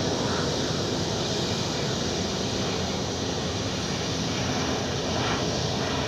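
Distant Airbus A350-900 on final approach, its Rolls-Royce Trent XWB jet engines making a steady rushing noise.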